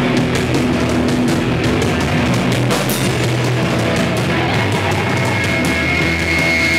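Punk rock band playing live and loud: electric guitars, bass guitar and drum kit together, with a steady high held note coming in a little past halfway.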